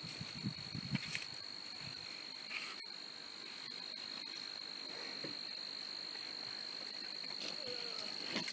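Gloved hands scraping and pushing loose dry dirt over a rifle, with a few soft scuffs and thuds in the first second or so, then quieter. A steady high-pitched insect drone runs underneath.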